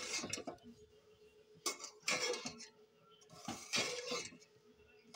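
Metal spoon scraping and clinking against a metal cooking pot in three bouts as beef pieces are stirred into a spiced yogurt mixture.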